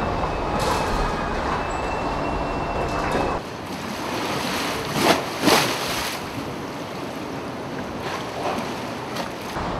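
Hurricane wind and rain, a heavy low rumble with a faint steady whistle, then after about three seconds storm-surge floodwater rushing and splashing down a stairwell, with two louder sudden noises a little past halfway.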